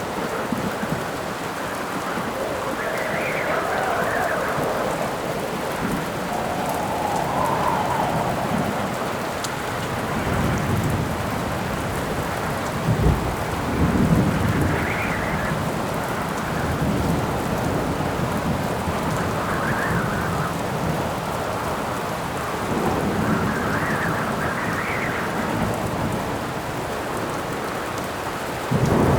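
Steady heavy rain, with gusts of wind swelling and fading several times and a low rumble of thunder about halfway through.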